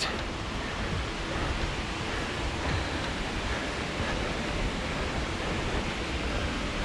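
Steady rush of a nearby waterfall, an even unbroken hiss of falling water.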